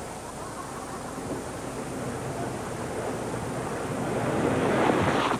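Golf gallery noise swelling steadily over several seconds and loudest near the end, as the crowd reacts to a tee shot flying toward the lake that it falls into.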